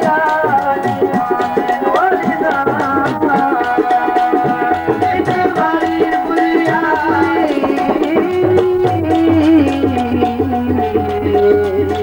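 Live South Asian folk music: a hand drum plays quick, even strokes under a melody that bends in pitch, over a steady held drone.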